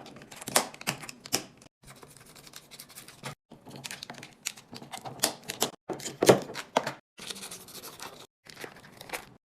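Packaging and containers being handled while stocking a refrigerator: a quick run of clicks, taps and crinkles, the loudest knock about six seconds in, broken by several sudden cuts to silence.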